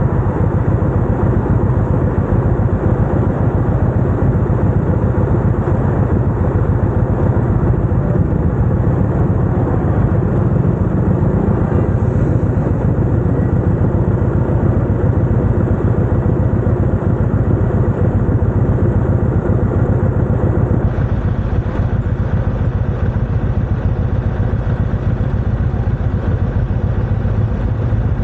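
Chopper motorcycle running under way, a steady, loud, low rumble throughout.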